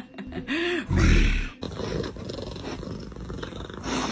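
A Siamese cat yowling, a drawn-out call that ends in a loud, harsh burst about a second in: the calling of a female in heat. Then a Siamese cat purring, a steady low rumble.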